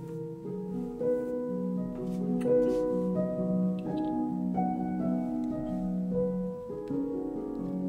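Soft instrumental background music with slow, held notes that overlap one another.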